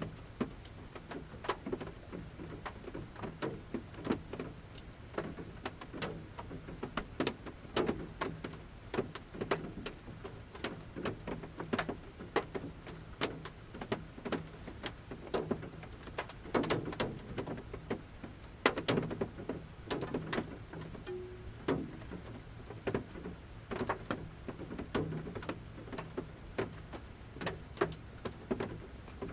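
Large raindrops falling from the forest canopy onto the metal roof of a camper van, heard from inside: irregular taps of varying loudness, each with a short hollow ring from the roof.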